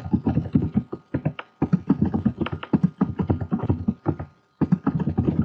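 Computer keyboard typing: rapid keystrokes in quick runs, with short pauses about a second and a half in and about four seconds in.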